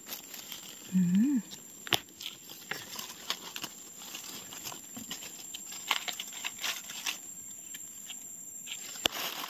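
Dry leaf litter crackling and rustling with many scattered sharp snaps, as someone moves through it picking mushrooms from the forest floor. A short hummed 'mm' with a rising pitch about a second in.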